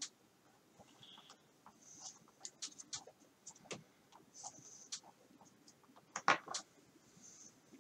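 Light handling noises of small parts being worked by hand: scattered soft clicks and scratches, with a louder pair of clicks a little over six seconds in.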